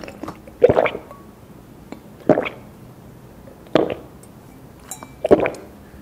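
Wet lip smacks, four of them about a second and a half apart.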